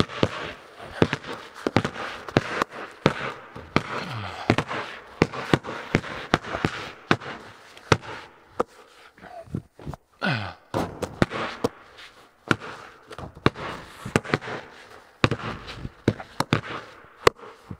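Basketballs being shot at a hoop and bouncing on a bare concrete floor: many sharp, irregular bangs and thuds, each followed by a strong echo off metal walls.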